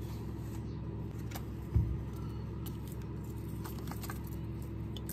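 Faint light clicks and ticks of a thin silver metal ball chain being handled, over a steady low hum. A single dull thump sounds just under two seconds in.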